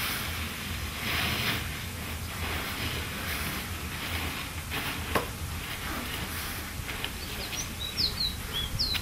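Dry cured tobacco leaves rustling in repeated bursts as a bundle is swung up and carried, with a sharp click about five seconds in. A bird chirps a few times near the end.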